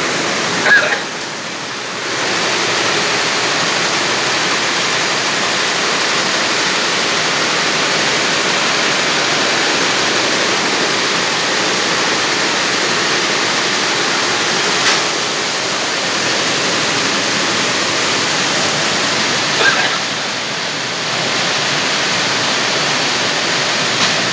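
Steady rushing machine noise, like a fan or blower running, with a few brief clicks. The noise dips twice for a second or so.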